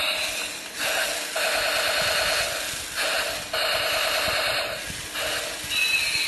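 A remote-control toy vehicle's small electric motor and plastic gearbox whirring in short runs, stopping and starting again several times.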